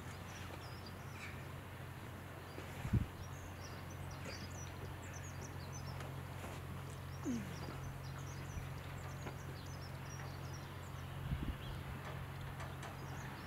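Small birds chirping and twittering throughout over a steady low hum. A low thump about three seconds in stands out above the rest, with a few softer low knocks near the end.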